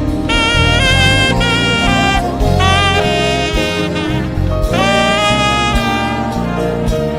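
Band music with a saxophone playing a melody in phrases over a bass line.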